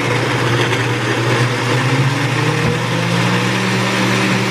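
Countertop blender running at speed, grinding dried chiles, tomatoes and water into a red salsa. Its motor note rises a little about three seconds in.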